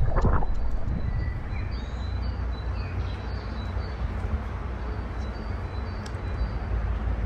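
Outdoor river ambience: a steady low rush of flowing water, with a small bird chirping short high notes over and over.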